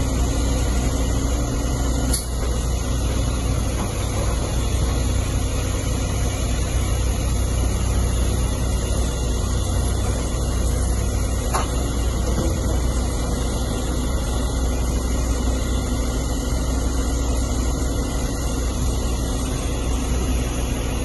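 Heavy diesel machinery engines running with a steady, unchanging low drone, with a couple of faint clicks.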